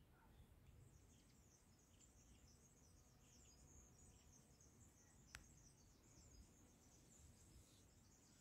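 Near silence, with faint high twittering of distant birds throughout and a single small click about five seconds in.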